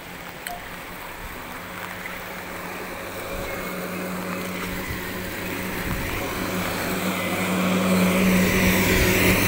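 A motor vehicle's engine hum growing steadily louder, over the rush of brown floodwater pouring along a roadside drain after heavy rain.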